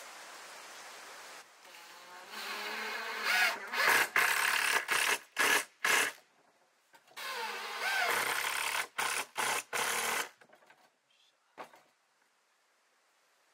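Makita 14.4V cordless impact driver driving screws into a wooden board, fixing a plastic funnel in place. There are two screws, each a run of a couple of seconds with a rising motor whine, then a few short trigger bursts as the screw is seated.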